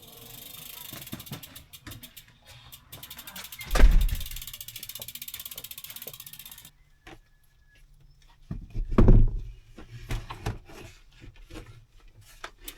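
Bicycle rear hub freewheel ratchet buzzing with very rapid, even clicks as the wheel spins freely, cutting off after about six and a half seconds. A heavy thump comes partway through, and a few more thumps and scattered clicks follow.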